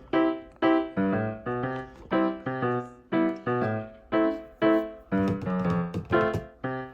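Background music: a keyboard playing a steady run of short plucky chords, about two to three a second, each fading quickly.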